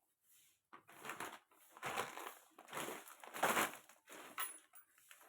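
Plastic food packets crinkling and rustling as they are handled, in several short bursts about a second apart.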